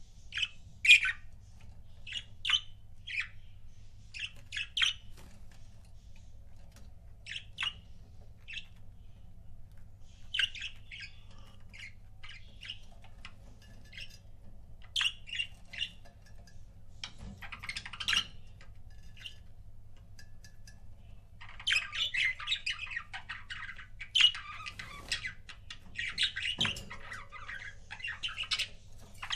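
Budgerigars chirping in short, scattered calls, turning into a denser, continuous chatter about two-thirds of the way through.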